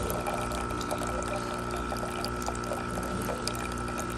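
Jura XJ9 super-automatic espresso machine brewing a full shot: its pump runs with a steady hum while coffee pours into the cup.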